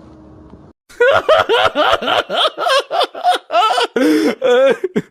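A stock laughter sound effect: a person laughing hard in quick repeated bursts, starting about a second in after a short gap.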